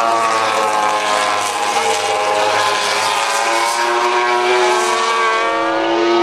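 MotoGP race motorcycle engines running hard, several engine notes sliding slowly in pitch at a steady, loud level.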